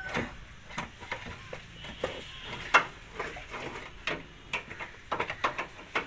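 Irregular metallic clicks and knocks of a steel jack rod being pushed through the rear bumper and fitted into the spare-wheel lowering winch of a Toyota Innova, with one sharper knock a little under three seconds in.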